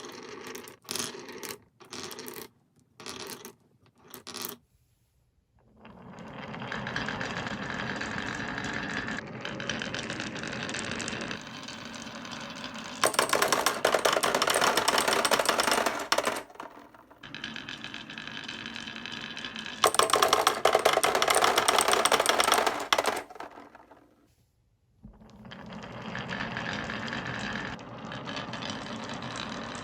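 Marbles on a wooden HABA marble run: a few sharp clacks, then after a short pause a long stretch of rolling and rattling along the wooden track. Two louder, harsher stretches of a few seconds each break into the rolling, and it stops briefly near the end before rolling on.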